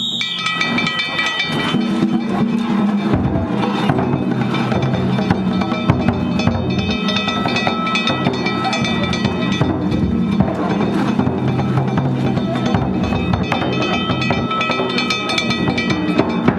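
Danjiri festival hayashi: taiko drum and small hand-struck gongs playing a continuous rhythm, the gongs ringing over the drum strokes.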